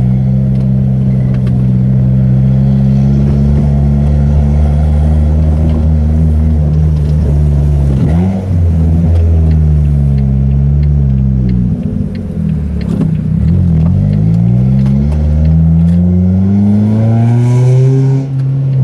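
Mazda 3's 2.3-litre four-cylinder engine running at low revs while the car is driven slowly, heard from inside the cabin. The engine note dips and picks up again a couple of times, then climbs steadily under acceleration near the end before a short drop at a gear change.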